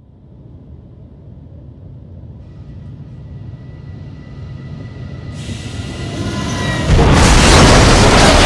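Train crash sound effect: a rumbling train grows steadily louder, with high steady tones joining about two and a half seconds in, then about seven seconds in a sudden, very loud crash that keeps going.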